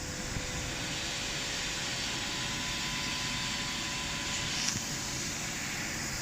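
ND4040 CNC die-engraving machine running: a steady high hiss with a faint steady whine, and one short click near the end.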